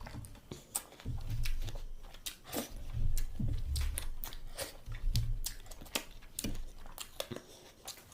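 Close-miked chewing and biting of food: a run of short, sharp mouth clicks and crunches with soft low thuds in between.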